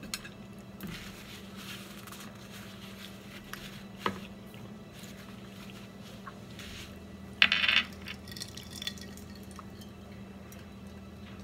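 Quiet table sounds of someone eating and drinking over a steady low hum: a light click about four seconds in, and a brief louder rustling sound about seven and a half seconds in.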